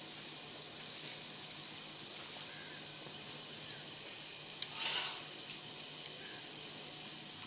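Breaded chicken pops on skewers sizzling steadily in hot oil in a pan, with one brief louder spurt of hissing about five seconds in.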